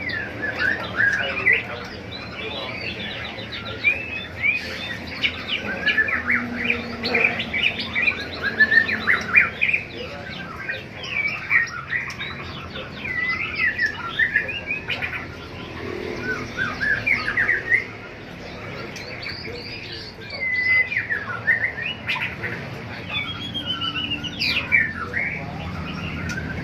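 Many caged songbirds chirping and calling over one another in quick, overlapping high chirps and trills, thinning briefly about two thirds of the way through.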